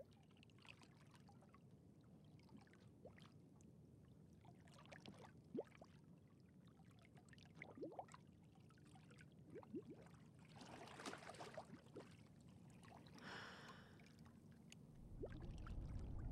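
Faint water around a canoe on calm water: scattered soft drips and trickles, with two brief swishes of water about two-thirds of the way through. A low swell rises near the end.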